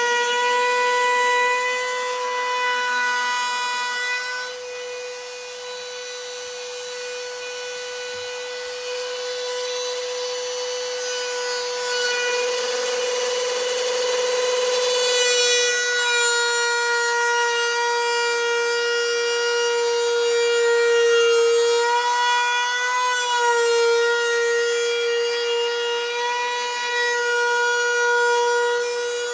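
Router running at full speed with a steady high whine as its bit routes a binding channel along the edge of a wooden guitar body. The whine dips slightly in pitch a few times as the bit bites into the wood.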